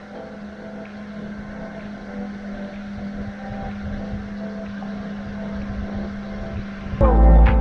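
Motorboat engine running steadily at speed while towing a wakeboarder, under the rush of the wake and wind on the microphone. About seven seconds in, loud music cuts in over it.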